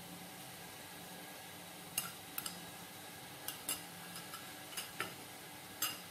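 A metal spoon clinking against a ceramic soup bowl in about ten light, ringing taps that start about two seconds in, as sambal kecap is spooned onto the soup. A faint steady hiss lies underneath.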